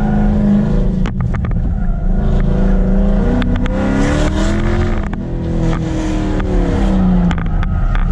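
Dodge Charger Scat Pack's 392 HEMI V8 on an autocross run, the engine note rising and falling repeatedly as it accelerates and lifts between turns.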